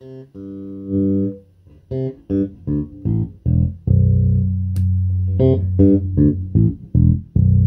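TUNE SWV-6 six-string electric bass with a monkey pod top, played fingerstyle through an amp: a held note rings first, then a quick run of plucked notes, and from about four seconds in a sustained low note with further notes plucked over it.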